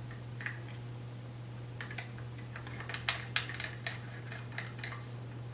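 Scattered small metallic clicks and taps of a nut driver loosening the hex standoffs that hold a VGA connector to a metal panel, over a steady low hum.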